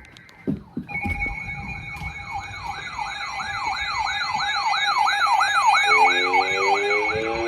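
Electronic siren yelping, its pitch sweeping up and down about three times a second over a steady tone. Near the end a second, lower siren starts a slow rising wail.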